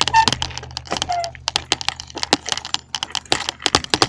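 Bicycle rattling over a rough dirt road: a fast, irregular run of sharp clicks and knocks, with two brief squeaks in the first second or so.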